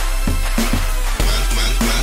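Electronic runway music with a steady beat and deep bass.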